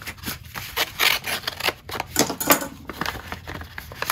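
A letter opener slitting open a paper envelope: a quick, irregular run of short scraping cuts and paper rustles.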